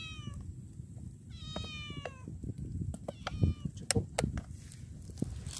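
A cat meowing, a long call falling in pitch about one and a half seconds in and a fainter one around three seconds in. Sharp taps of a knife against a bottle of chili sauce come near the middle.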